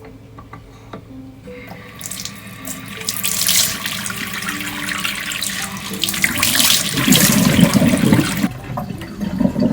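Water running from a tap into a sink, building up over the first couple of seconds, running strongly through the middle and shutting off near the end.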